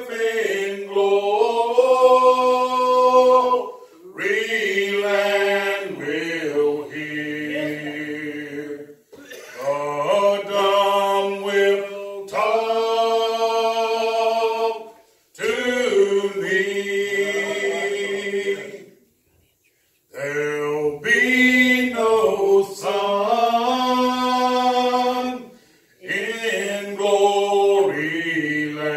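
Unaccompanied singing voice, with no instruments, carrying a slow melody in held notes, in phrases of a few seconds with short breaks between them.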